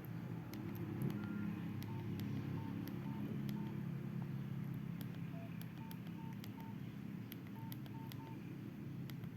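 Nokia 5130 XpressMusic keypad being pressed: a series of short, even key-tone beeps with sharp button clicks between them, over a steady low hum.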